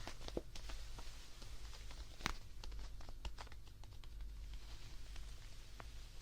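Close-microphone ASMR handling of a plush toy: soft fabric rustling and scratching with scattered small clicks and taps, one sharper tap about two seconds in.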